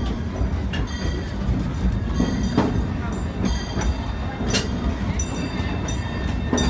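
Steam-hauled narrow-gauge passenger train running along its track, heard on board from the front car: a steady low rumble of wheels on rail with a sharp click every couple of seconds, and faint high-pitched tones above it that grow stronger near the end.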